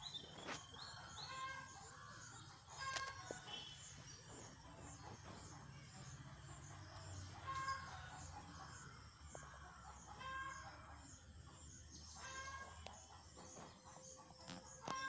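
Faint chicken calls, short calls repeating every two to three seconds, with fainter high-pitched chirping behind them.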